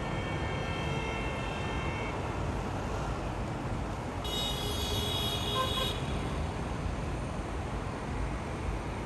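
Steady road traffic noise, with a car horn sounding once for about a second and a half in the middle, and a fainter horn-like tone in the first two seconds.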